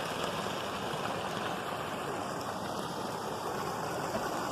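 Steady rushing of a stream's flowing water, an even wash of noise.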